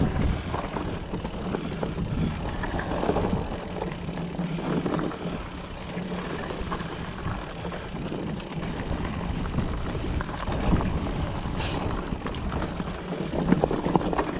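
Specialized Turbo Levo electric mountain bike descending a dirt forest trail: tyres rolling over earth and roots with a steady rumble, and the bike rattling and knocking over the bumps.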